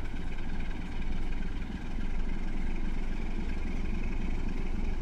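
Sulzer 12LDA28 diesel engine of a CFR 060-DA locomotive running with a steady drone, a little louder about a second in.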